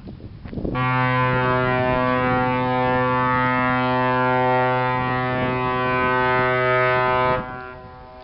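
Ship's horn sounding one long, steady low blast as a vessel runs in to be beached for scrapping; it starts just under a second in, cuts off about a second before the end and trails away in an echo.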